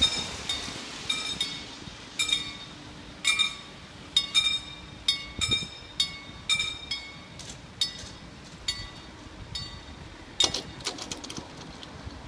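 Two German level-crossing bells striking out of step with each other, about two strikes a second, while the crossing barriers lower. The ringing stops near the end, once the barriers are down.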